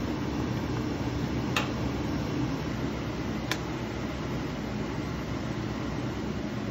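Steady fan-like hum with two sharp clinks of a metal utensil against cookware, about one and a half and three and a half seconds in.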